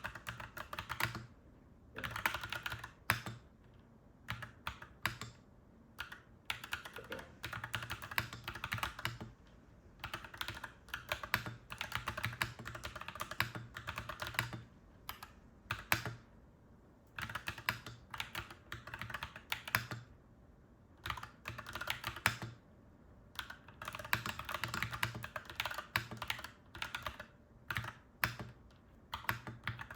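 Clacky mechanical keyboard being typed on in bursts of rapid keystrokes, with short pauses between the bursts.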